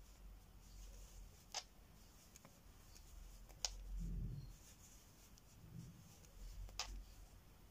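Faint handling noise of yarn and crochet work, with three sharp little clicks spread through it and a soft rustle near the middle.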